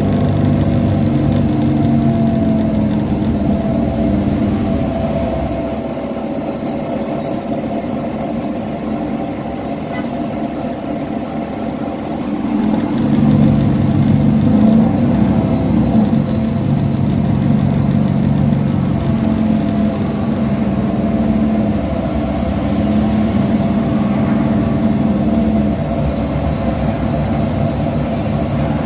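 Diesel engine of a 2010 Nova Bus LFS articulated city bus running under way, its note stepping up and down as the bus pulls through its gears. It eases off for several seconds, then grows louder again about halfway through as the bus accelerates.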